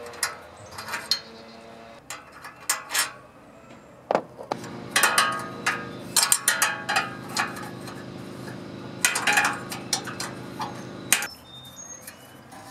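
Metal clinking and tapping of small parts and hand tools being handled while parts are taken off the cylinder head of a small overhead-valve engine. A steady low hum sounds underneath from about four seconds in until near the end.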